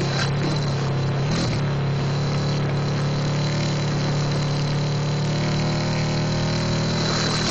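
Drag-race Suzuki Satria FU motorcycle engine running loud and held at steady revs, with a brief blip about a second and a half in.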